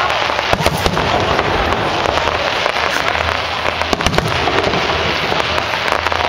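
Fireworks display: a dense, continuous crackle of bursting shells and crackling stars, with several sharper bangs standing out.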